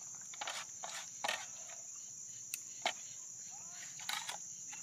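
A steady, high-pitched chorus of crickets, with scattered sharp clicks and taps over it.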